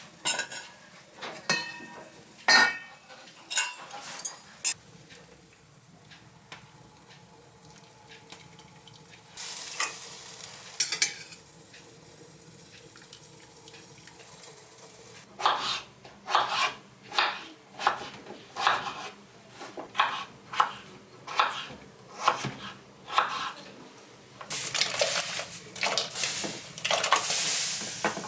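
Kitchen utensil sounds at a pot: a few sharp metal clinks, then a run of evenly spaced stirring strokes, about one and a half a second, and near the end a steady hiss like frying.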